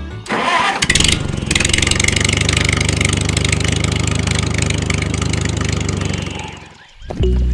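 A tractor engine running with a steady, rapid chug, fading out near the end.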